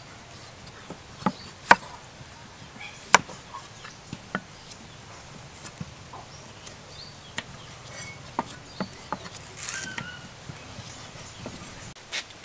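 Cleaver cutting the skin and chunks off a taro root held in the hand, giving irregular sharp knocks about a second apart.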